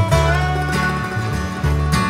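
Country music soundtrack with plucked string instruments over a steady bass line.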